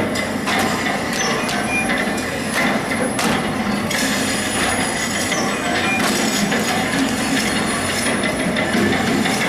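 Dense clattering of repeated knocks and clicks over a steady mechanical din.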